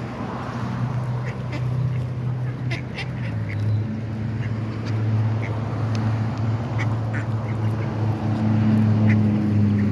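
Ducks quacking and calling in short bursts at close range, over a steady low hum.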